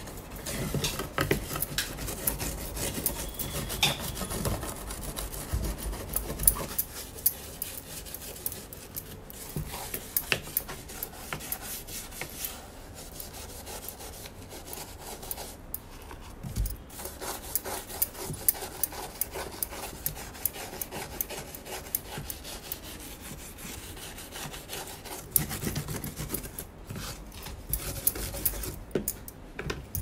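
Toothbrush bristles scrubbing the ribbed plastic cover of a semi-automatic washing machine: quick, irregular back-and-forth rasping strokes with scattered sharp clicks.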